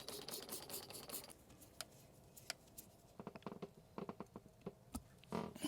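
Faint handling of small wheel parts: a light scraping rustle for about the first second, then scattered light clicks and taps.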